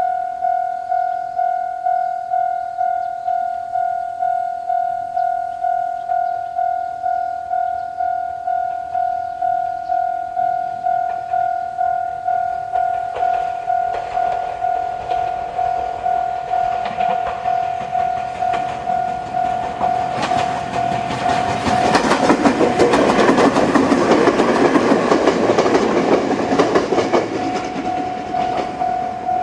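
Japanese level-crossing alarm with a JR Central-type electronic bell, ringing in a steady, evenly repeating ding. Partway through, a Jōshin Electric Railway 500-series electric train comes up and passes over the crossing, its wheels clattering over the rail joints, loudest for several seconds while it drowns out the bell, which is heard again near the end.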